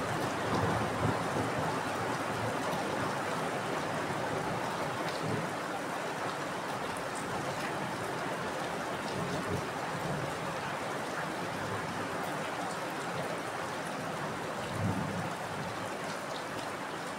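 Steady heavy rainfall, an even hiss of rain without a break. A few brief low thumps rise out of it, the loudest about a second before the end.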